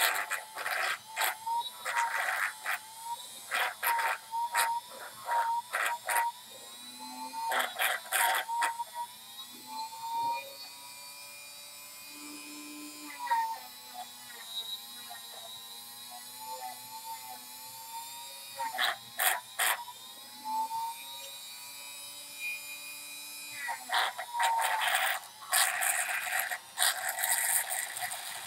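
A small handheld power tool runs with a wavering whine, its pitch sagging and recovering as it bears on the work. It is broken by irregular clusters of sharp clicks and rattles in the first third, around two-thirds through, and near the end.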